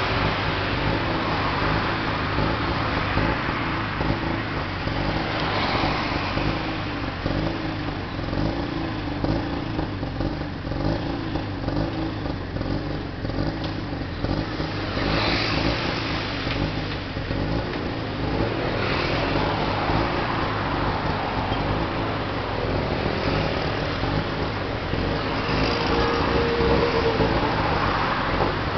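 Busy city traffic: cars and motorbikes passing close by in waves, over the steady low running of a tuk tuk's small engine.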